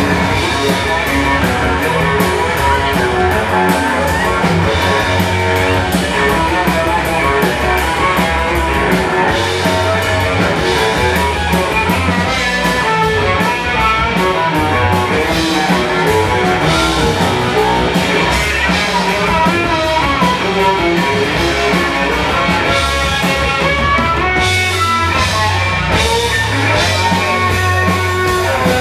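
Live rock band playing loud and steady: an amplified cello, an electric guitar and a drum kit.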